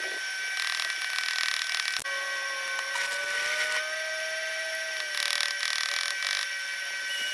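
A power tool running with a steady high whine whose lower tone drifts slightly, with louder rasping stretches about half a second in and again around five seconds in, as it works on metal.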